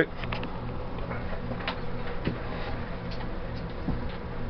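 Faint scattered light clicks and taps over a steady low hum: room tone with small handling sounds.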